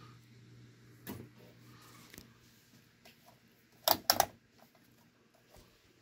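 1982 SMC D4W36 36-inch ceiling fan running with a steady low motor hum. A small knock comes about a second in, and a loud double knock about four seconds in.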